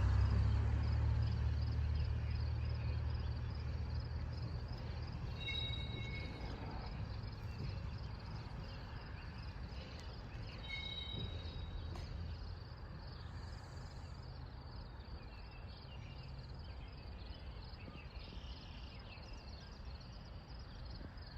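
A low, steady engine rumble fades gradually away, while insects keep up a fast, even chirping throughout. Two short high calls come about five and eleven seconds in.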